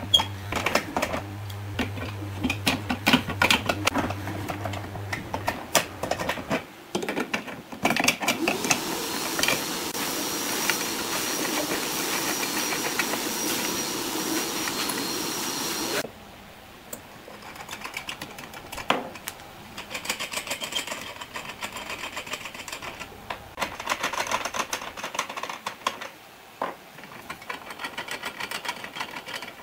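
Woodworking shop tool sounds: rapid irregular clicking and tapping over a low hum, then a machine running steadily for about eight seconds before cutting off suddenly, then quieter scattered clicks and scrapes.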